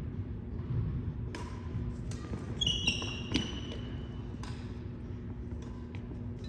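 Badminton rally: several sharp racket hits on a shuttlecock spread over a few seconds, with sneakers squeaking on the hardwood court in the middle. A steady low hum runs underneath.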